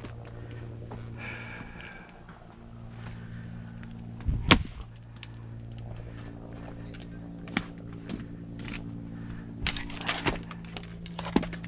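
A single hard axe strike splitting a firewood log about halfway through, followed by several lighter wooden knocks near the end, over a steady low hum.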